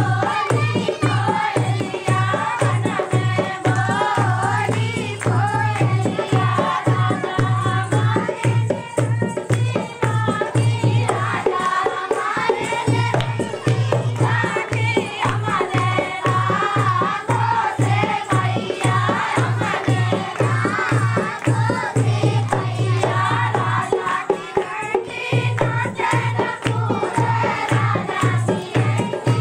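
Dehati nach geet, a Hindi village folk dance song: a wavering sung melody over a steady, driving drum beat. The drum drops out briefly twice.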